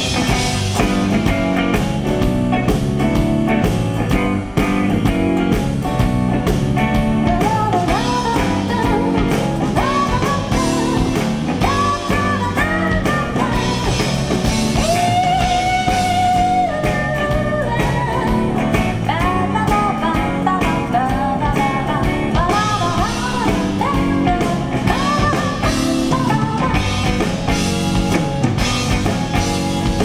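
Live band performance of a slow rock song: a woman singing with long, sliding notes over acoustic guitar, bass and drums.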